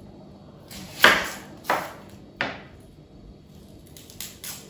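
Kitchen knife cutting an onion on a wooden cutting board: three sharp knocks of the blade on the board, each with a short ring, then a few lighter clicks near the end.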